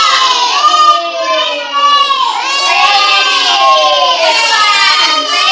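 Many young children's voices calling out together in a loud, continuous group chant, several voices overlapping at once.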